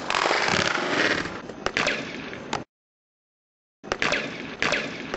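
Inline skates grinding and scraping along a concrete ledge with a few sharp knocks, then, after the sound cuts out for about a second, skate wheels rolling and clicking over asphalt.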